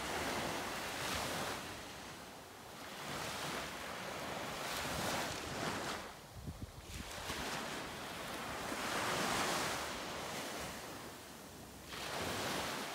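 Small surf waves breaking and washing up a sandy beach, the hiss of the water swelling and fading every few seconds.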